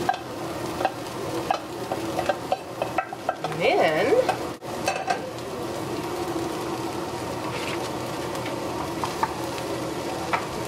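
Chopped vegetables and freshly added rice frying in bacon drippings in a frying pan: a steady sizzle. During the first few seconds there are clicks and scrapes of a wooden spoon against the pan and the saucepan.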